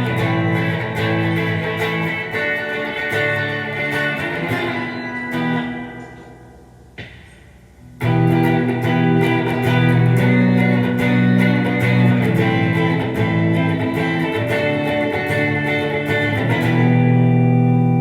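1980s Tokai ST-50 Stratocaster-style electric guitar played for a sound test: picked notes and chords. Near the middle it is left to ring and fade for about two seconds, then playing starts again abruptly.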